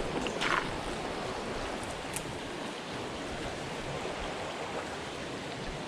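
Steady rush of flowing stream water, with a brief knock or rustle about half a second in.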